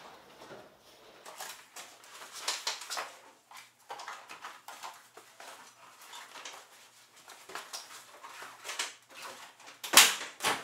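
Rustling, scraping and light knocking of a padded tailgate pad and its straps being worked into place over a pickup truck's tailgate, a string of short irregular sounds with a louder knock near the end.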